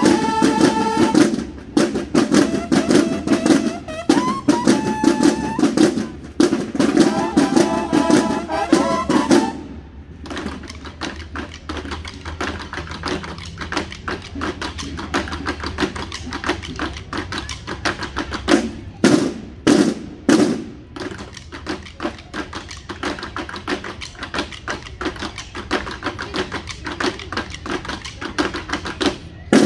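Banda de guerra playing: bugles sound held notes over field snare drums for about the first ten seconds, then the bugles stop and the drums carry on alone in a fast, steady rhythm of strokes, with a few heavier accents about two-thirds of the way through.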